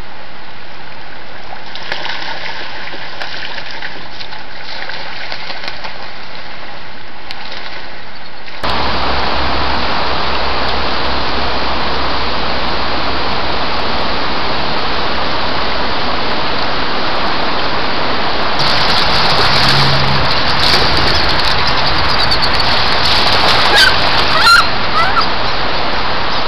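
Steady rushing of a flooded woodland stream, which grows louder about eight seconds in. Near the end come a few short, thin calls from wood ducks over the water noise.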